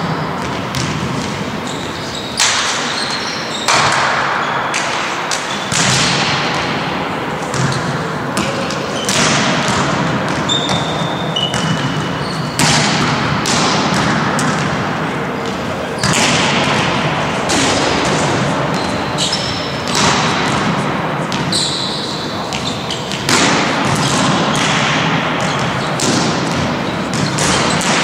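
Volleyballs being struck and bouncing on a wooden court: repeated sharp thuds, one every second or two, each echoing through a large sports hall.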